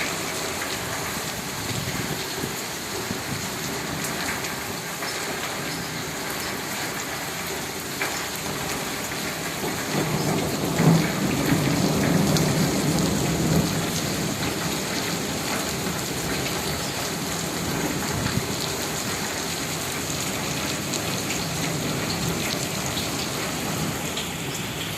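Steady rain falling and splashing on surfaces at night. About ten seconds in, a low rumble swells for a few seconds and fades under the rain.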